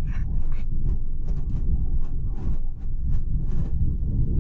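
Car driving at road speed, heard from inside: a steady low rumble of engine and tyre noise with a string of short, irregular clicks, several a second.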